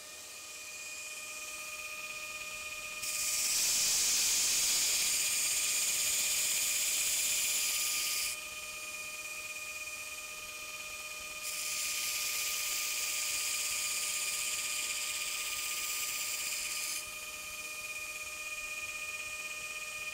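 2x72 belt grinder running over a 14-inch contact wheel with a steady whine, while a knife blade is hollow-ground against the belt in two passes of about five seconds each, each a loud grinding hiss that stops abruptly.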